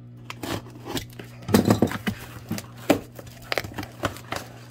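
A cardboard shipping box being opened by hand, its slit flaps pulled apart and handled: a run of sharp cardboard scrapes, taps and rustles, loudest about a second and a half in.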